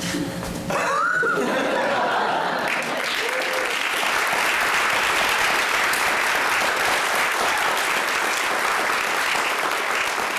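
Theatre audience applauding, the clapping swelling in about a second in and then holding steady, with a voice or two calling out in the first few seconds.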